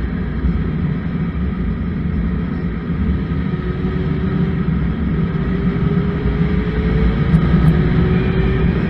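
Suzuki Bandit 1200 inline-four motorcycle at road speed: the engine runs under heavy, rumbling wind noise on the microphone. A faint engine tone rises slowly in pitch about halfway through.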